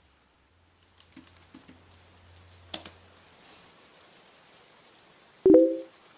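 Computer keyboard typing: a quick run of about six keystrokes, then one louder keystroke. Near the end comes a short, loud, low thud with a brief pitched ring, the loudest sound here.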